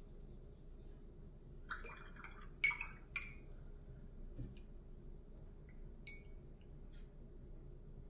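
Paintbrush rinsed in a glass water jar: a few quick splashy clinks and swishes, the loudest about two and a half seconds in, with a lighter tap of the brush near six seconds.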